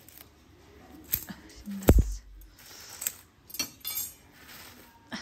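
Roasted maize cobs and their charred husks being handled at a wood fire: scattered knocks and clinks, one heavy thump about two seconds in, and a quick run of crackling ticks later on.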